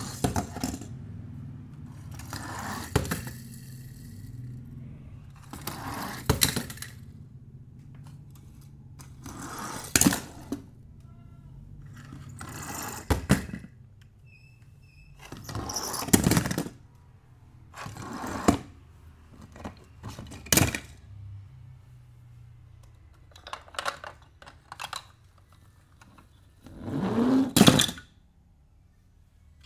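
Toy cars rolling across a board and dropping into a cardboard box one after another, each landing with a clatter and knock against the cardboard and the other cars: about ten times, some with a short rolling rumble just before the landing.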